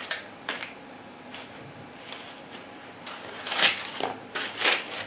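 Packaging being handled: a flat metal wrench laid onto a plastic bag, then a rail handguard worked out of its dense foam packing. A series of short rustles and scrapes, the loudest in the second half.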